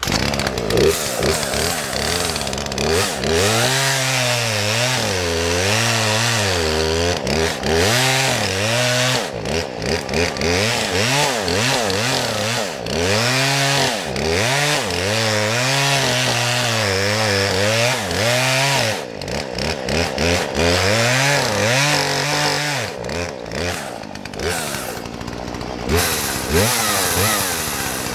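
Gas chainsaw cutting into the trunk of a dead standing tree to fell it. The engine pitch rises and sags over and over as the chain bites into the wood and frees up, with a few brief drops off the throttle.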